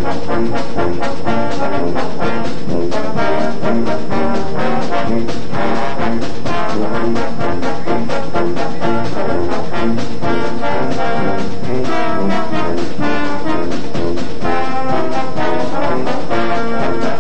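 High school marching band playing a brass piece: trombones and trumpets over a steady drum beat.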